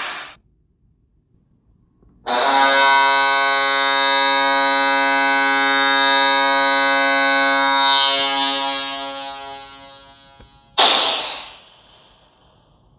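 Hockey goal horn played from a goal horn app: one long, steady blast that starts about two seconds in, holds for about six seconds, then fades away. A short burst of noise follows near the end.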